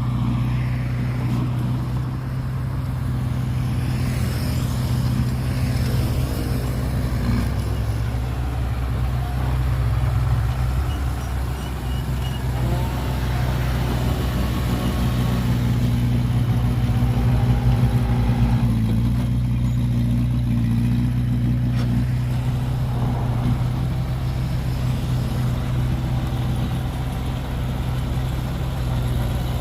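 Heavy diesel engine of earth-moving machinery running steadily with a low drone, its pitch and level shifting slightly now and then as it works.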